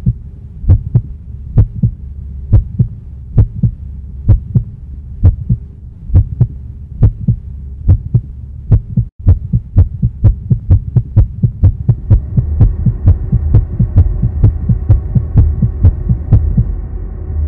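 Heartbeat sound effect: paired low thuds, lub-dub about once a second, quickening to about three beats a second after a brief cut-out about nine seconds in. A low droning hum comes in about twelve seconds in and runs under the beats.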